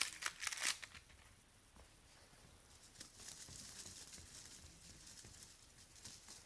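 A kitten pawing and nosing a foil crinkle toy: a few loud crinkles in the first second, then faint rustling and light scratching for the rest.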